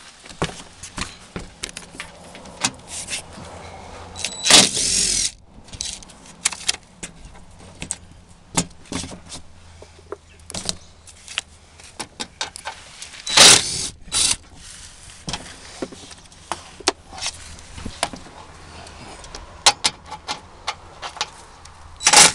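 Cordless impact driver running in short bursts as it backs out the bolts of a car's plastic belly pan, with clicks and knocks in between. The loudest run comes about four seconds in, two shorter ones come close together about two-thirds of the way through, and another comes at the very end.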